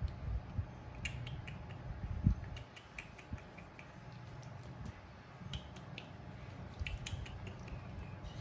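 Irregular small wet clicks and smacks of a baby monkey sucking on its fingers, over a low steady background hum.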